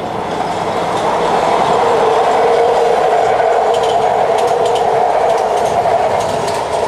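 Four-car MARTA electric rapid-transit train running past on an elevated track, giving a steady, loud running noise. Faint rapid clicking from the wheels, like clickety-clack over rail joints, comes in during the second half.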